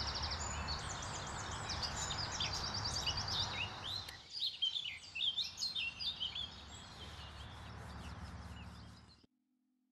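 Several songbirds singing and chirping, with quick trills and short calls, over a low rumble of background noise that drops away about four seconds in. Near the end the sound cuts off abruptly, leaving a faint steady tone.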